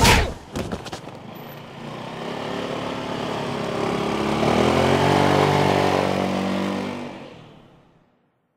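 A motor scooter's engine pulls away, rising in pitch as it speeds up, then fades into the distance and cuts to silence near the end.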